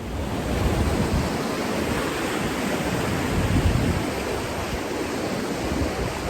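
Steady rushing noise of a large waterfall, a dense even roar weighted toward the low end.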